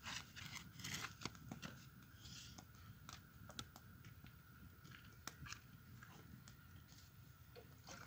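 Faint scattered clicks and small rustles over a quiet background with a faint steady high tone.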